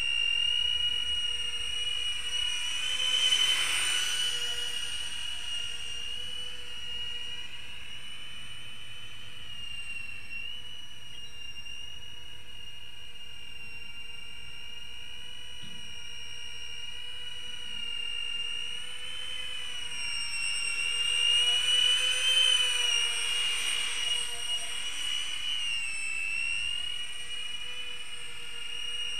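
Electric ducted fans of a flying thrust-vectoring drone, giving a steady high-pitched whine. It swells louder with the pitch sliding down about three seconds in, and again around twenty-two seconds in.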